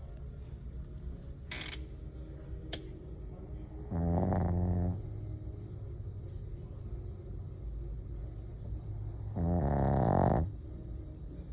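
Sleeping dog snoring: two loud snores about five and a half seconds apart, each lasting about a second.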